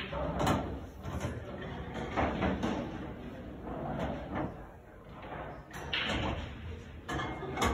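Pool balls clacking on a coin-operated pool table: a sharp cue strike on the cue ball right at the start, then balls knocking and rolling. Another sharp strike comes near the end.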